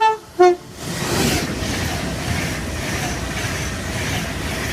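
Class 390 Pendolino electric train sounding the last two short notes of a five-note horn tone in the first half-second, then passing through with a steady rush of wheel and air noise.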